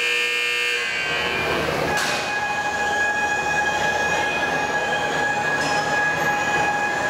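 Steady electronic warning buzzer of an overhead crane sounding while it hoists a Shinkansen car body, a single unbroken tone that comes in about two seconds in after a brief, higher tone at the start, over a low murmur of a large crowd.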